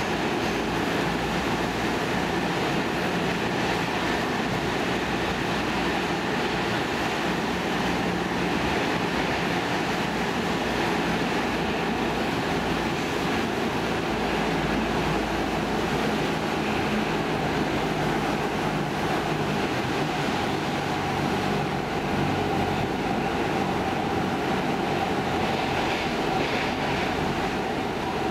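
Stockholm Metro C14 car heard from inside while running, with its own traction motors cut out: a steady rumble of wheels on rail and body noise, with no rise or fall.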